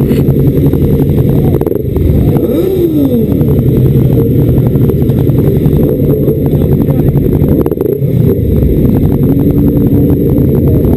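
Motorcycle engine running under way with heavy wind rush on the microphone. The engine note dips briefly twice, about two seconds in and near eight seconds.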